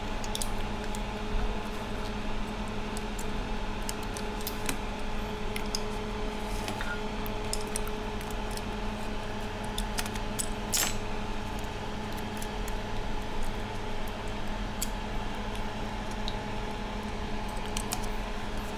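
Scattered light clicks and taps of small metal parts and tweezers as an iPhone 6 Plus logic board is pressed back into its housing, with one sharper click about eleven seconds in. A steady hum runs underneath.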